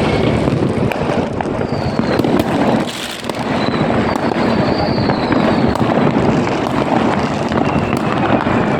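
Dense New Year's fireworks: many firecrackers and rockets popping and crackling at once in a continuous barrage. A few thin falling whistles sound over it, with a brief lull about three seconds in.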